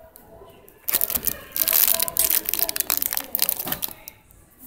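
Clear plastic bag around a squishy toy crinkling and crackling as it is grabbed and handled, starting about a second in and lasting about three seconds.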